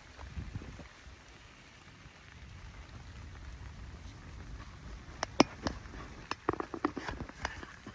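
Steady rain hiss, with a scatter of sharp drips and taps from about five seconds in.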